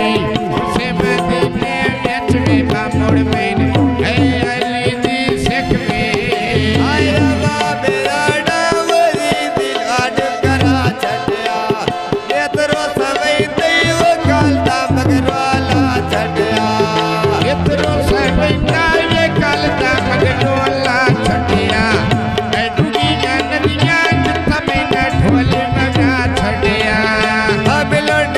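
Punjabi mahiye folk song performed live: a man singing over tabla accompaniment.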